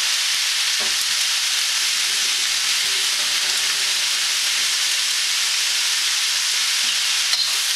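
Vegetables and noodles sizzling steadily in hot sesame oil in a wok during a stir-fry, with a few faint knocks.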